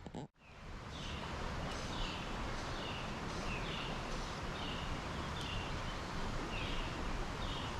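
Steady rush of a flowing stream, with a small animal's short, high, falling chirp repeated over and over, well under a second apart.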